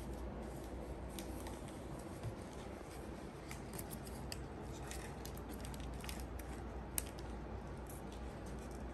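Faint scattered light clicks and rustles of paper and foam craft pieces being handled, over a steady low hum.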